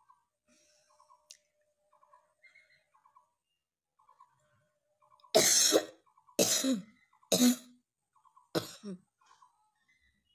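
A person coughing four times, about a second apart, starting about halfway through; the first cough is the loudest.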